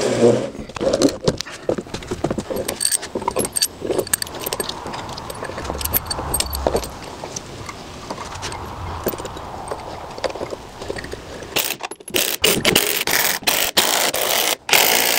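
Steel bolts and washers clinking, jingling and scraping as they are handled and pushed through a wooden block. From about twelve seconds in, a cordless impact driver runs in several loud bursts, driving the bolts into the timber.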